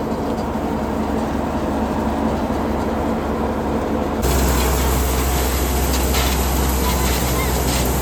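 Wheat thresher running steadily: a low engine drone under dense mechanical rattle. About four seconds in, the sound abruptly gets louder and harsher.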